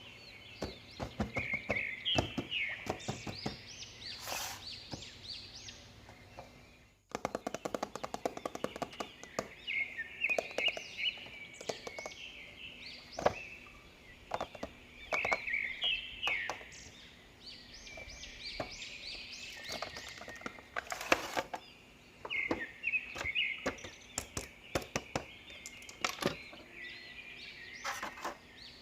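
Birds chirping in quick short calls throughout, with scattered sharp clicks and knocks of plastic toys and packaging being handled.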